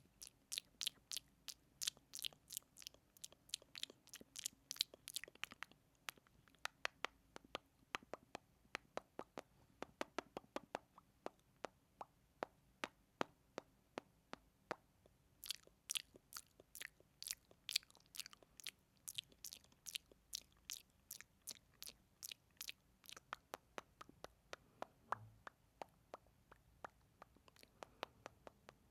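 ASMR mouth sounds: quick, wet lip smacks and mouth clicks, several a second, coming in thicker runs and thinner stretches.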